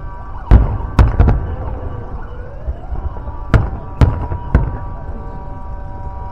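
Fireworks shells bursting in the sky as a series of sharp booms. Four come close together in the first second and a half, then three more between about three and a half and four and a half seconds in.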